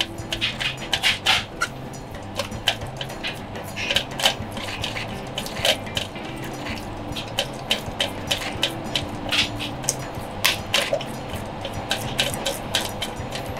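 A plastic scraper pressing rice porridge through a stainless steel strainer: irregular wet scraping strokes and sharp clicks of the scraper against the metal mesh and rim.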